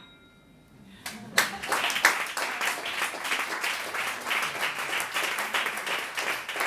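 A brief hush, then an audience breaks into applause about a second in, many hands clapping steadily.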